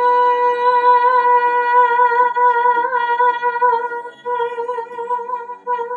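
A woman's voice sings one long, high, held 'ahh'. It breaks briefly about four seconds in, then a second held note follows. Soft guitar background music plays underneath.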